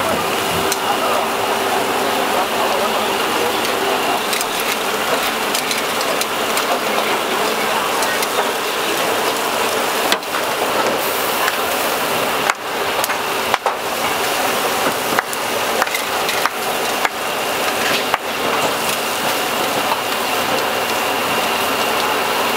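Food sizzling steadily over high heat, with scattered sharp clicks and knocks from about ten seconds in.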